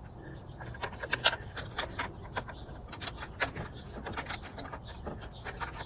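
Wrench working a carburetor mounting nut on a small outboard motor: irregular metallic clicks and light scraping, with a couple of sharper clicks.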